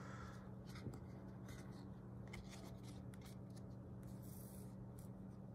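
Faint clicks and soft rubbing of Upper Deck trading cards being handled and set down on a wooden table, with a brief scrape about four seconds in.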